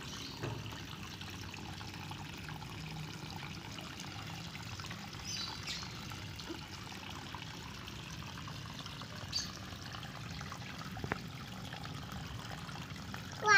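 Water steadily trickling and pouring into a koi pond. A short high-pitched call comes near the end.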